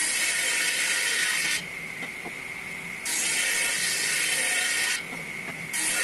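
Table saw ripping wooden boards into strips. The blade runs with a steady whine. Three cuts each add a loud hiss of the blade through wood, lasting one to two seconds: one at the start, one about three seconds in, and one beginning near the end.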